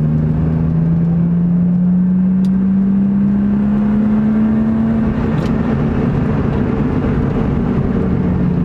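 BMW E36 325i's M50B25 straight-six driving, heard from inside the cabin: a steady engine drone over road noise, its pitch climbing slowly for about five seconds and then holding.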